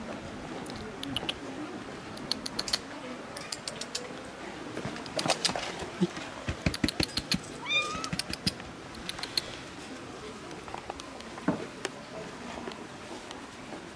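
A domestic cat gives one short meow a little past halfway through, among a run of sharp clicks and taps.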